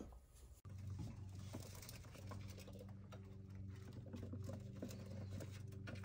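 Faint, light pattering and scrabbling of a gerbil's claws on plastic: scattered small clicks over a steady low hum.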